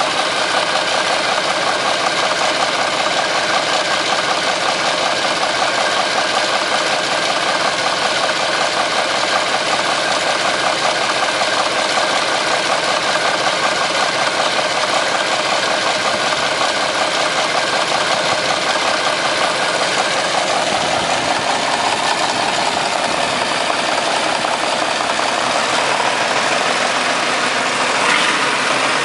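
Vintage Caterpillar D13000 diesel engine running steadily with an even, regular beat.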